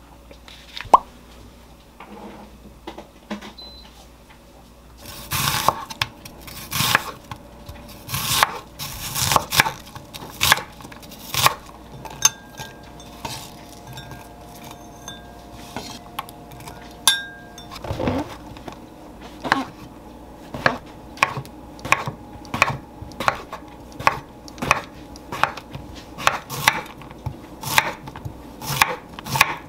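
Kitchen knife chopping on a wooden cutting board: sharp, irregular knife strikes from about five seconds in, with one duller thump midway, settling into an even slicing rhythm of one to two strokes a second near the end as a zucchini is cut into rounds. Before the chopping, one sharp click about a second in.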